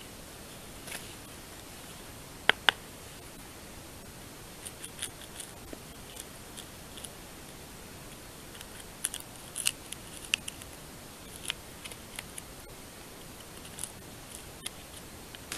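Knife blade whittling a small piece of wood: scattered short scrapes and clicks as shavings come off. Two sharp clicks come close together about two and a half seconds in.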